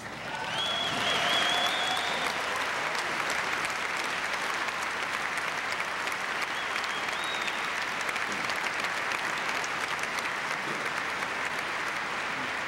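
Large audience applauding, rising quickly to a steady level, with a shrill whistle near the start and another about seven seconds in.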